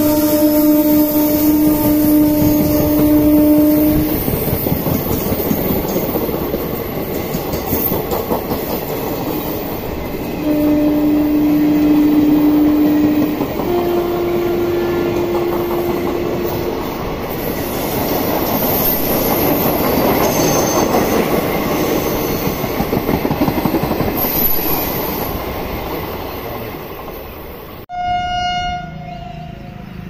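Indian Railways electric passenger train passing close by: the locomotive's horn is held for about four seconds, then the coaches rumble and clickety-clack past. The horn sounds twice more about ten and fourteen seconds in, the second a little higher. The rolling noise fades near the end and, after a cut, a short higher horn sounds.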